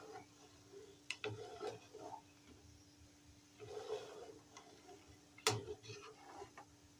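Metal spatula stirring thickening soup in a metal kadai, clicking against the pan about a second in, twice soon after and once near the end, with a softer swish around the middle. A faint steady hum runs underneath.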